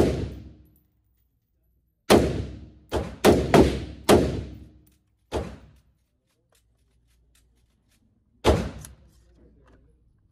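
Gunshots echoing in an indoor shooting range: one shot right at the start, a quick string of five between about two and five and a half seconds in, and one more near the end, each with a short ringing tail.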